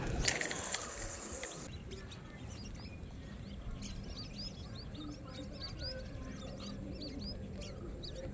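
Small birds chirping: many short, high chirps repeated every half second or so, after a brief rushing hiss in the first second and a half.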